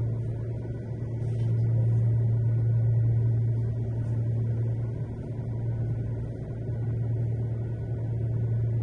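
Cable-drawn Poma-Otis automated people mover running along its guideway, heard from inside the car: a steady low hum with an even rumble beneath it.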